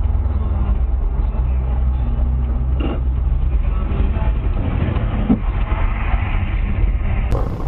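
A motor vehicle running: a steady low engine and road rumble, with a couple of brief sounds about three and five seconds in. Near the end the sound changes abruptly to a brighter, hissier recording of traffic.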